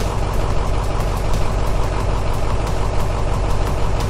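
Engine idling steadily, a continuous low engine hum with no change in speed.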